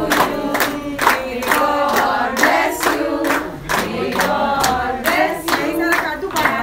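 A group of people singing together and clapping their hands in time, about two claps a second.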